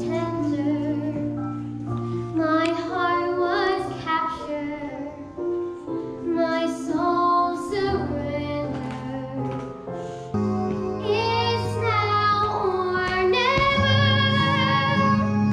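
A girl singing a musical-theatre song over instrumental accompaniment, her sustained notes rising and falling. The accompaniment grows fuller and louder about ten seconds in.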